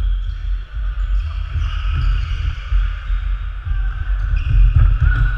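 Players' footsteps thudding on a wooden sports-hall floor during a game, over a steady low rumble.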